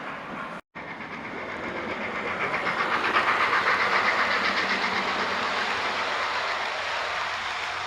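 Model railway train running along the track past the microphone, with a fast, even clickety-clack of wheels over rail joints. It grows louder to a peak a few seconds in, then slowly fades as it moves away.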